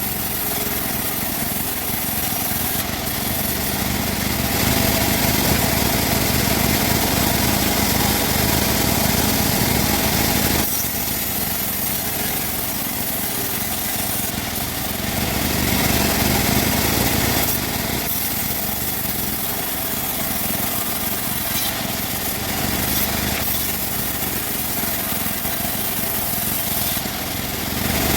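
Engine-driven bandsaw running steadily while cutting wood, growing louder twice for several seconds at a time.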